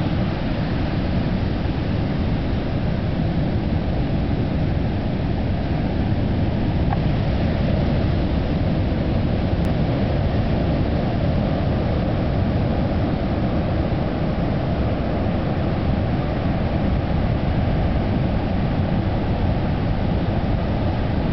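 Pacific surf breaking on a sandy beach: a steady, deep rush of waves with no pauses or separate crashes.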